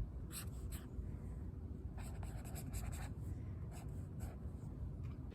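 Pen or pencil drawing on paper: a few short scratchy strokes, over a steady low outdoor rumble.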